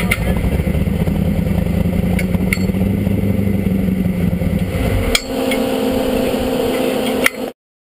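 Off-road buggy's Chevy 572 V8 engine running steadily, with a few sharp metallic clanks. About five seconds in, the deep engine note drops away and a lighter steady tone is left. The sound cuts off suddenly after about seven and a half seconds.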